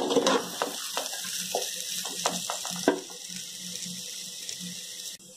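Elephant foot yam pieces sizzling in oil in a kadai, frying on a low flame. A metal spatula stirs them, scraping and clicking against the pan for the first three seconds, then the sizzle goes on steadily.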